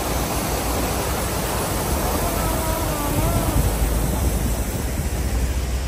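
Fountain jets splashing into their basin: a steady rushing hiss of falling water, with a low rumble underneath.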